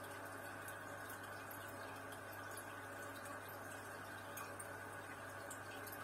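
Air bubbles from aquarium sponge filters rising and breaking at the water surface: a steady gentle bubbling with many small scattered pops and drips, over a low steady hum.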